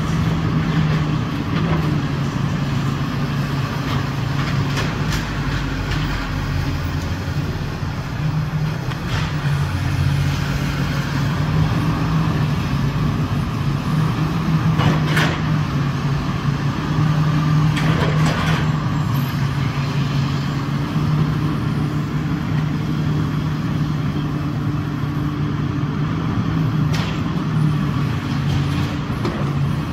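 Komatsu PC360 LC hydraulic excavator's diesel engine running steadily under working load during building demolition. Several sharp knocks and crashes come from the machine breaking up the structure, the loudest about halfway through and again a few seconds later.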